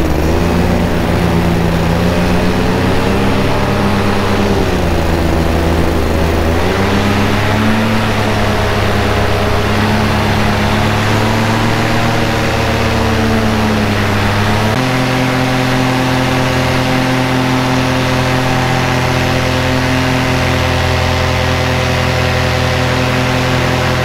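Paramotor engine and propeller droning hard in flight, pitch swelling and easing several times as the throttle is worked. About two-thirds of the way through it jumps to a steady, slightly higher drone.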